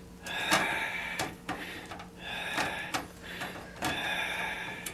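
Screws being backed out of a PC's rear case fan with a screwdriver: three short whirring runs, with sharp clicks between them.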